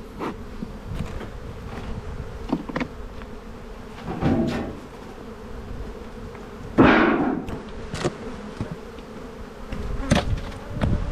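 Honeybees buzzing steadily around a Langstroth hive as its lid and inner cover are taken off, with scattered knocks and clicks. A loud, brief rush of noise comes about seven seconds in.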